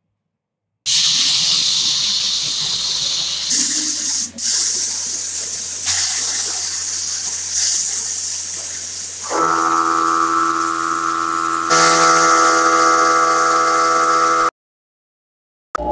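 Gravity-feed air spray gun hissing as it sprays black paint, in several spells joined by abrupt cuts. From about two-thirds of the way in, a steady whistle rides over the hiss, and the sound stops sharply near the end.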